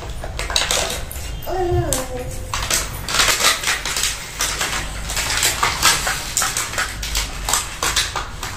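Clear plastic packaging crinkling and rustling in quick crackles as toy cars are unpacked from their box, with light clatter of small plastic toy cars.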